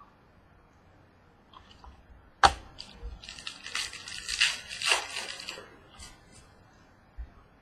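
Trading-card packaging and cards being handled: a sharp click about two and a half seconds in, then about two and a half seconds of crinkling and rustling, with a few light ticks afterwards.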